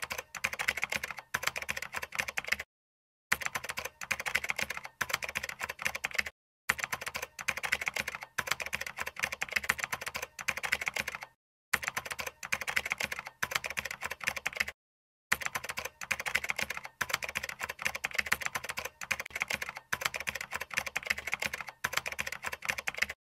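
Typing: rapid keystroke clicks in several runs, broken by short pauses, used as a sound effect for text being typed out.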